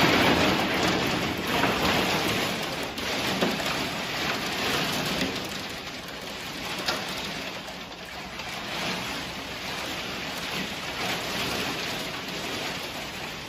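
Thunderstorm downpour pelting down as a dense, steady hiss, with a few sharper hits standing out, easing somewhat over the first several seconds.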